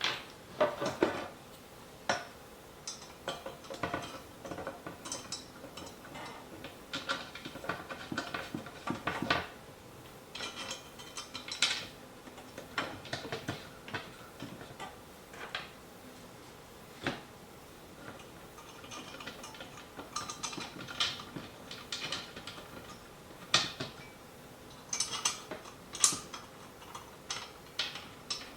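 Flat-pack furniture assembly: small metal bolts clinking and rattling, with scattered knocks and scrapes of the hardware and wooden panels as the bolts are fitted by hand, in irregular bursts.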